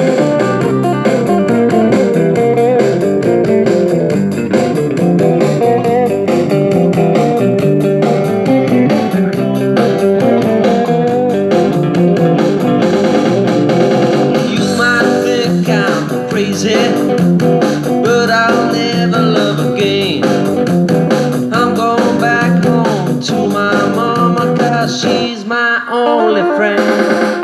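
Live blues band playing an instrumental break, with electric guitars over bass guitar. From about halfway a lead guitar line with bent notes comes up over the chords. The bass drops out briefly near the end.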